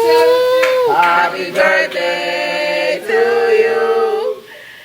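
Music with sung vocals: long held notes, the first bending down at its end, with a brief drop in level near the end.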